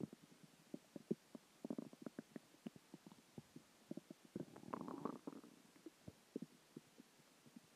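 Human stomach gurgling: a faint, irregular string of small pops and bubbles, with a longer bubbling rumble about four and a half seconds in. These are the gurgles of a stomach digesting dinner, water and gas.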